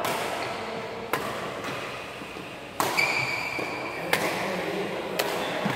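Badminton rally: rackets striking the shuttlecock five times, about once a second, each hit a sharp crack with a short ring after it.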